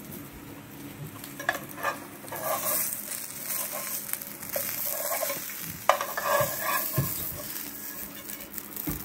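Bánh xèo pancake sizzling in a hot nonstick frying pan while a spatula scrapes under it and clicks against the pan to fold and slide it out. The sizzle thickens a few seconds in.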